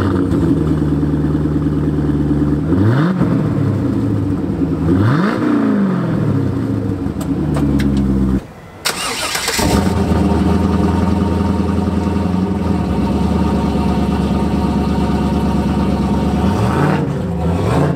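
A 1999 C5 Corvette's LS1 V8 idling, revved twice with quick throttle blips. About halfway through, a turbocharged LS-based V8 in a Trans Am fires up from cold and settles into a steady idle, with one more small rev near the end.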